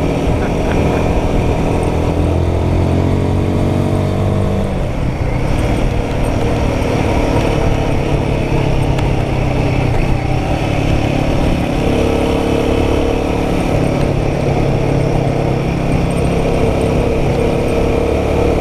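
Royal Enfield Guerrilla 450's single-cylinder engine accelerating, its pitch climbing for about four seconds before it drops at a gear change. It then runs at a steadier road speed over a constant rush of wind and road noise.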